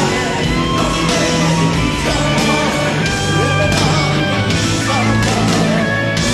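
Live rock band playing a power ballad: a male lead singer sings over drums, bass and electric guitars, with a Les Paul electric guitar coming to the fore near the end.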